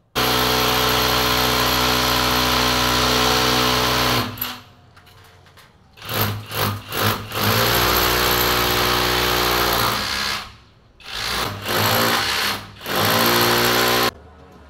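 Electric drill boring into the wall, run in bursts: a long run of about four seconds, a pause, a few quick trigger pulses, then several more runs of one to three seconds with short stops between.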